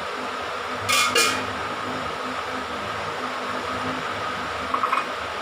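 Kitchen utensil clinking sharply twice against a mixing bowl about a second in, with a few lighter taps near the end, over a steady background whir.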